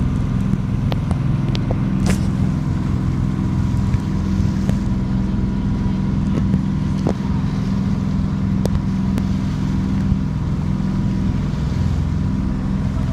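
Boat engine running steadily, a low drone, with a few brief clicks or knocks over it.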